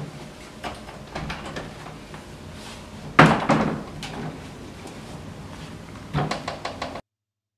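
A house front door being opened and shut, with a loud clunk about three seconds in and another near the end, and light footsteps on a tile floor before it.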